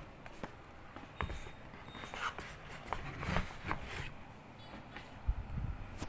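Irregular light knocks, clicks and rustles of items being handled during a laptop unboxing, about a dozen small impacts spread unevenly, the strongest a little past the middle and about five seconds in.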